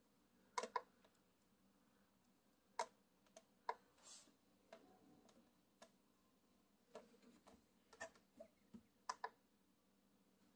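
Faint, scattered light clicks and taps: fingers handling the plastic selector knob and housing of a Sboly espresso machine. There are about a dozen clicks, some in quick pairs, and a brief soft hiss about four seconds in.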